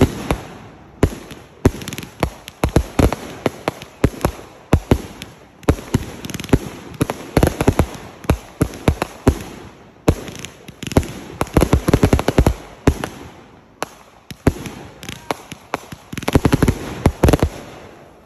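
Consumer aerial fireworks firing and bursting overhead: volleys of rapid, sharp pops and bangs with brief lulls every few seconds, thinning out near the end.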